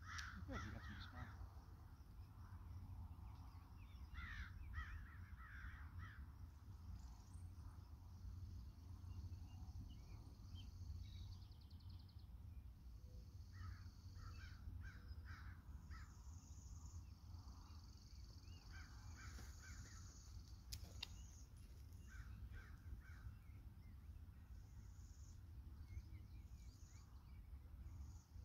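Crows cawing in short runs of several caws, a handful of times, over a steady low rumble.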